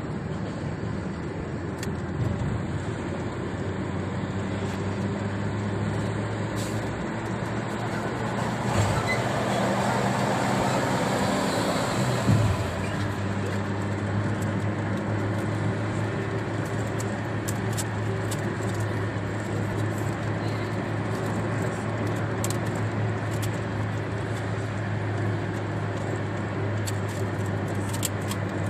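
Rain falling on a car's windshield, heard inside the cabin over the steady hum of road and engine noise while driving on a highway. The noise swells for a few seconds about a third of the way in and ends with a short thump.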